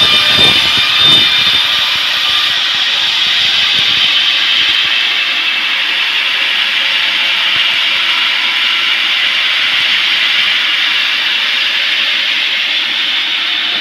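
Sawmill saw cutting through a large teak log: a loud, steady, high-pitched rushing noise, with a few knocks in the first second or so.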